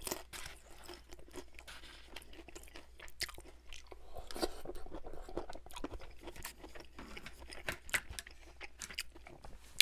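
Close-miked chewing and crunching of Chinese takeout, including a broccoli floret, with many short wet mouth clicks.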